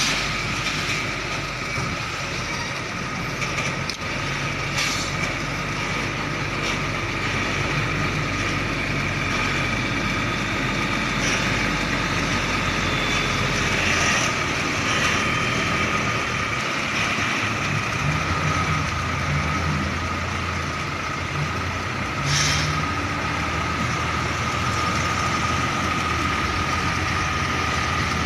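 Heavy diesel container truck running as the tractor pulls a loaded container trailer across the yard. Its engine is a steady hum throughout, broken by a few short hisses.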